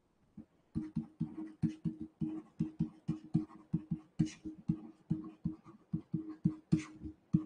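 Stylus strokes tapping and scraping on a writing tablet during handwriting. A quick, uneven run of short dull knocks, about four a second, starting about a second in.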